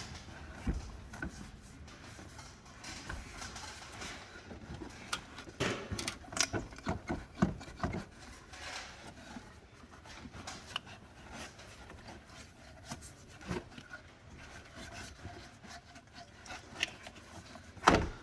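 Hand work on a rubber upper radiator hose being worked off its neck: intermittent rubbing, clicks and small knocks, busiest between about five and eight seconds in, with one sharper knock near the end.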